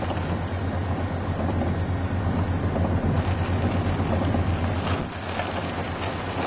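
Strong wind buffeting the microphone: a steady low rumble and rushing noise that eases briefly about five seconds in, with faint scattered ticks.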